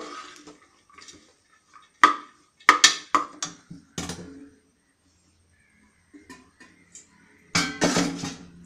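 Steel spoon scraping and knocking against the side of an aluminium pressure cooker while stirring thick cooked green gram and coconut paste, with a handful of sharp knocks about two to four seconds in, then a pause.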